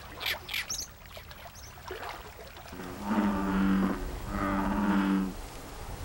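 American bullfrogs calling: two long, low, steady calls of about a second each, one right after the other, lowing like a cow.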